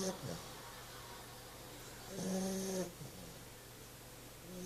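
Puppy snoring in its sleep, one snore on each breath about every two and a half seconds: the tail of one at the start, a full one lasting under a second about two seconds in, and the next beginning near the end.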